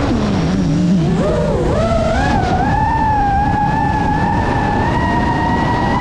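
FPV drone's brushless motors whining with wind rushing past: the pitch sinks low near the start as the motors slow right down, climbs back over the next two seconds, then holds a steady high whine.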